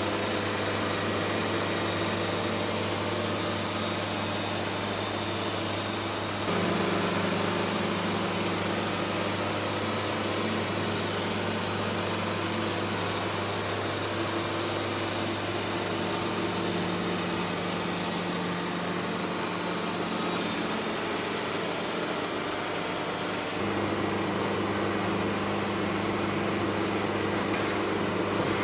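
Wood-Mizer portable band sawmill running steadily, its engine note shifting about six seconds in and again near the end.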